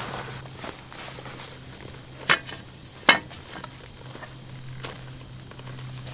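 Two sharp knocks about a second apart from a pickaxe and shovel being handled, over a steady faint outdoor background.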